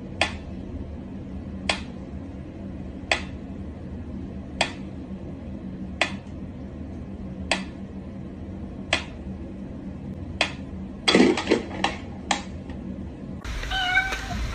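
Wind-up pyramid metronome ticking slowly and evenly, one sharp tick about every second and a half. Near the end its ticks break into a brief flurry of louder, irregular clicks and knocks.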